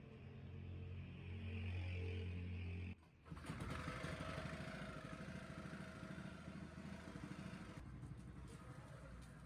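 A motor running, first as a steady low hum, then, after a brief dip about three seconds in, as a rougher, noisier mechanical running sound.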